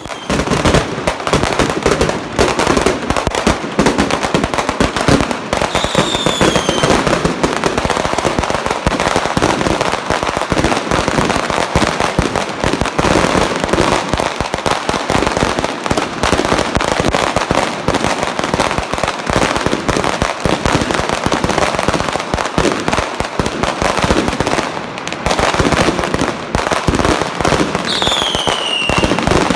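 Strings of firecrackers and fireworks going off in a loud, dense, unbroken crackle of bangs, with a short falling whistle twice, about six seconds in and near the end.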